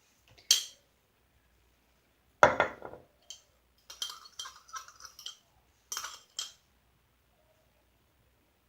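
A utensil clinking and scraping against a dish while a soap and salt mixture is stirred, in short separate strokes with one louder knock about two and a half seconds in.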